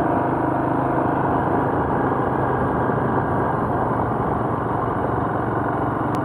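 Royal Enfield Himalayan motorcycle's single-cylinder engine running steadily under way.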